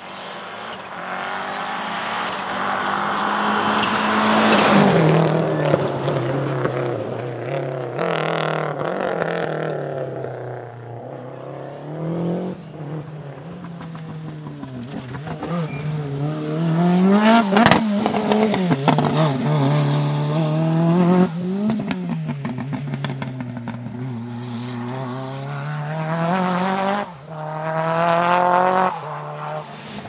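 Turbocharged four-cylinder rally cars (a Lancia Delta HF Integrale, then a Renault 5 Turbo) driven hard past on a tarmac stage. The engines rev high and drop again and again through gear changes and corners. The loudest moments come about four seconds in and again around seventeen seconds in.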